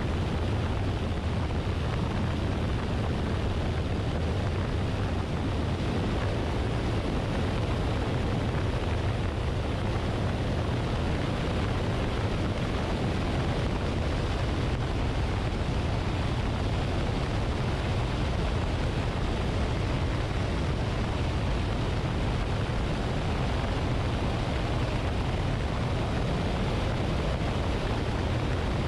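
Luscombe light airplane in flight, heard from a wing-mounted camera: a steady rush of wind over the microphone with a low engine and propeller drone beneath it.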